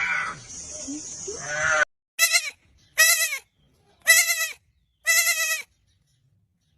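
A goat bleating four times, in short separate calls that each rise and fall in pitch, starting about two seconds in. Before them, the rough, noisy tail of a different animal's call cuts off abruptly.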